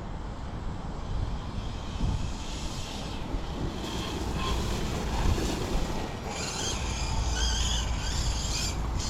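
Large electric RC buggy with a Hobbywing MAX5 G2 ESC and 800 kV brushless motor on 12S, driving through wet grass. A high-pitched motor and drivetrain whine grows stronger about six seconds in, over a steady rumble of wind on the microphone.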